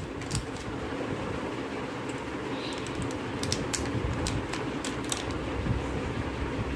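A metal spoon works flour through a stainless-steel mesh sieve, making a steady soft scraping. Scattered light clicks come from the spoon striking the mesh.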